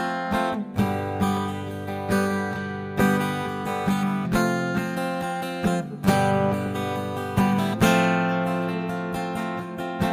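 Background music: an acoustic guitar strumming chords, each chord struck and left to ring.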